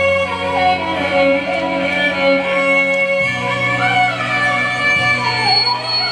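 Keyboard synthesizer, a Roland Fantom X6, playing a nagma melody in teentaal on a violin-like lead tone over sustained chords. The lead bends smoothly up and down in pitch, and the bass note changes about three seconds in.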